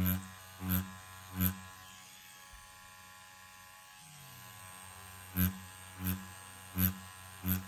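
Hummingbird Bronc V2 wireless rotary tattoo machine with a 15 curved magnum needle cartridge running with a steady buzz, with louder pulses about one and a half times a second as the needles are swept back and forth through practice silicone. The strokes stop for a few seconds in the middle while the buzz carries on, then start again.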